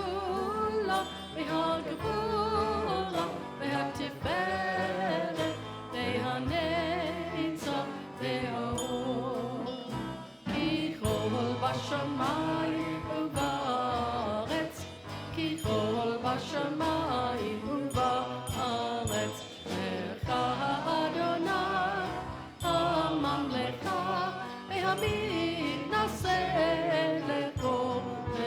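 Live worship music: a wavering melody over steady accompaniment, with short percussion strikes throughout.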